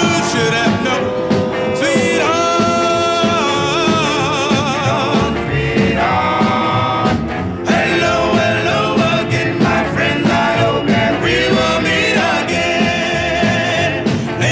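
1950s doo-wop record: a vocal group sings long held notes with vibrato, without words the recogniser could catch, over a steady rhythm-band backing.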